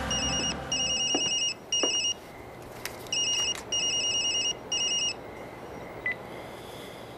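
Mobile phone ringing with an electronic trilling ringtone: three short warbling bursts, a pause, then the same three again, stopping about five seconds in.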